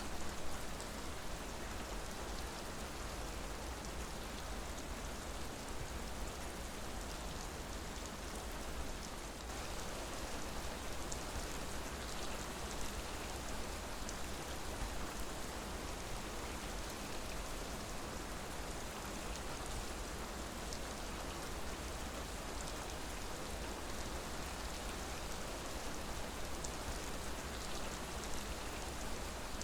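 Steady rain falling, a continuous hiss with individual drops ticking through it.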